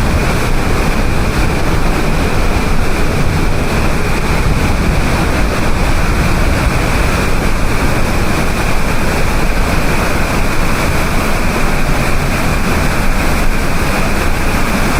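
Steady roar of a large monsoon waterfall, with wind gusting across the microphone.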